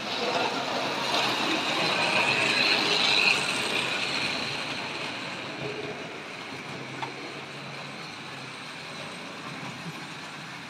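Vintage Tri-ang OO gauge model locomotive pulling coaches: its electric motor whirring and its wheels rattling along the track. The sound is loudest in the first three seconds or so, then fades steadily as the train runs away round the layout.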